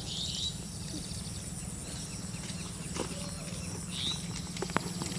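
A bird repeating a short rising-and-falling call about every two seconds, over a steady high insect buzz and a low, rapidly throbbing hum. A few sharp clicks near the end.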